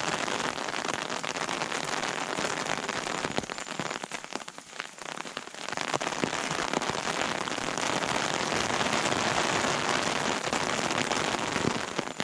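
Steady rain pattering, a dense hiss of crackling drops that eases for a couple of seconds in the middle.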